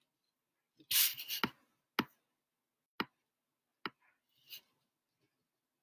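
Pen writing on paper: short scratchy strokes, with three sharp clicks or taps about a second apart between them.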